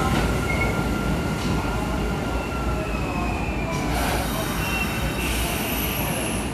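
Kintetsu 8400/8600 series eight-car electric train rolling slowly into the platform as it slows to stop, with a low rumble and thin squeals from its wheels and brakes. A high, faintly falling whine comes in near the end.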